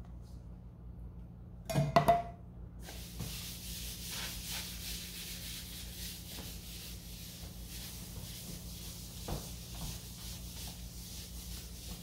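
Cloth rubbing back and forth over a stainless steel refrigerator door, a steady swishing wipe. It is preceded about two seconds in by a brief, loud burst of knocks.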